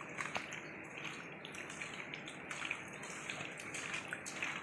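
Cleaned anchovies being mixed with salt, lemon juice and ginger-garlic paste in a bowl: soft, wet squishing with small scattered clicks.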